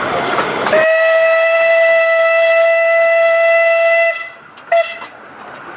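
Narrow-gauge steam locomotive's whistle: one long steady blast of about three seconds, then a short toot. It is the warning whistle for an approaching level crossing, given at a 'W' whistle board.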